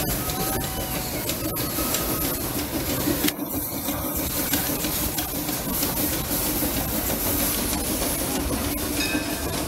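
Steam locomotive No. 76 pulling away from the station, a steady rush of steam and exhaust, with a low even hum joining about three seconds in.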